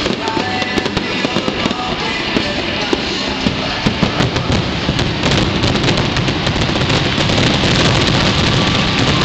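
Aerial fireworks barrage: many shells bursting in quick succession with crackling, thickening about halfway through into a dense, continuous rattle of reports. Music plays underneath.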